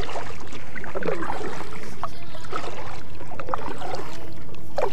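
Kayak paddle strokes in water: the blade dipping, splashing and dripping in irregular strokes, with gurgling around the hull.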